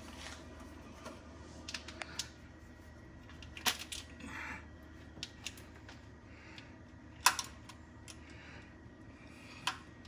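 Scattered small metallic clicks and taps of a screwdriver and hose clamp being worked into place on an engine coolant hose, the loudest click about seven seconds in, over a faint steady low hum.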